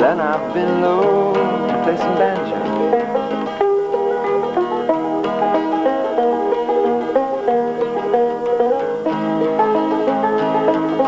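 Banjo picking over acoustic guitar in an instrumental passage of a folk song, with a quick run of plucked notes and no singing.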